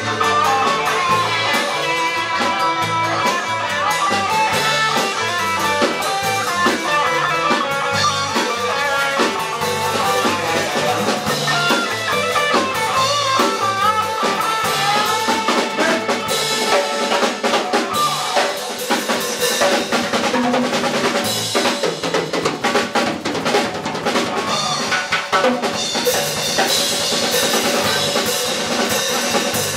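Live rock band playing an instrumental passage: drum kit, guitars, saxophone and violin, with a lead melody line over a steady drum beat.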